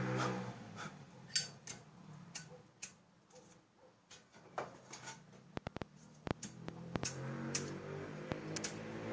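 Irregular sharp clicks and taps, several in quick succession a little past halfway, with a humming drone fading out at the start and returning near the end.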